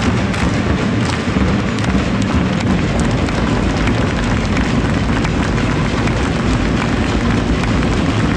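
Loud, steady stadium ambience in the stands: a dense crowd din over a heavy low rumble, with scattered sharp knocks.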